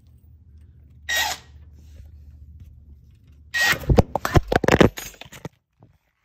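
Handling noise from the recording phone: a short scrape about a second in, then a loud, irregular run of knocks and rubs against the microphone, which cuts off suddenly near the end.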